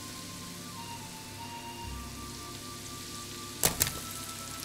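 Shallots sizzling in butter in a frying pan, a steady hiss. About three and a half seconds in, apple chunks tipped in from a bowl land with two sharp clatters close together.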